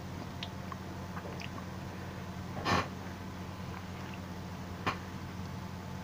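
Knife and fork cutting a pancake on a plate, with small faint clicks of the cutlery. One short noisy burst comes about halfway through, and a single sharp click near the end, over a steady low hum.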